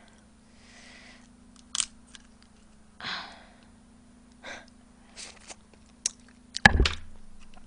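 Cooked lobster claw shell clicking and cracking as the meat is picked out with a small fork, with a couple of short breaths and a louder sharp knock near the end. A faint steady electrical hum sits underneath.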